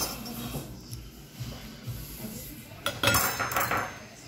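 Plates and cutlery clinking and clattering as they are handled on a dining table, with the loudest clatter about three seconds in.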